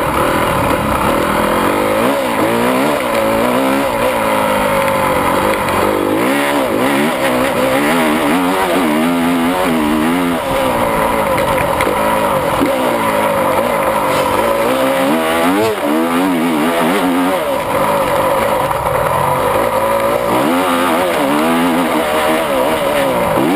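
Honda 250 four-stroke motocross bike engine, heard close from on board, revving up and falling back again and again as the bike is ridden round a dirt track.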